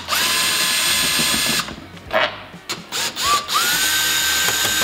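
Cordless drill/driver with a T27 Torx bit backing out the fairing bolts, in two runs: a steady whine for about a second and a half, a few clicks, then a second run that spins up a little over three seconds in.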